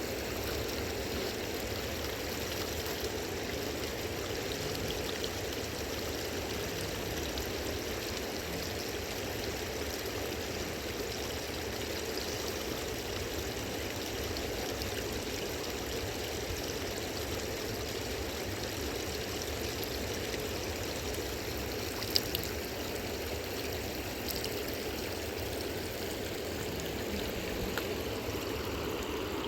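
Steady rush of a fast-flowing river, an even unbroken sound of running water, with one short sharp click about twenty-two seconds in.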